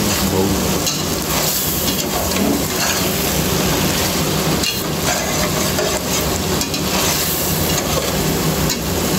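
Chicken pieces sizzling in oil in a steel pot while a slotted spatula stirs and scrapes through them, with a few sharp clicks of the spatula on the pot. The cooking liquid is drying off and the chicken is starting to fry in the oil.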